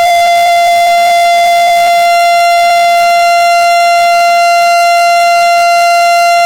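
A loud, steady tone held at one unchanging pitch, with a slight flutter in its first two seconds.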